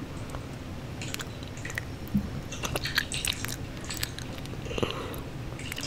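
Close-miked ASMR eating sounds of a girl eating honey: irregular mouth clicks, lip smacks and licking as she sucks the honey off her fingers.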